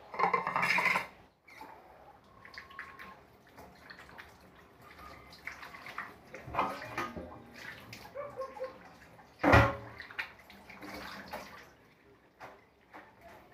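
Water splashing and dribbling in a stainless-steel kitchen sink as hands and a strainer are rinsed, with a short loud rush at the start. A single sharp knock, the loudest moment, comes about two-thirds of the way through.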